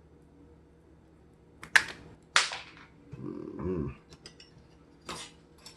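Sharp clicks and clatter of small hand tools being picked up and handled on a workbench: two loud clicks less than a second apart near the middle, then a brief murmured voice and another click near the end.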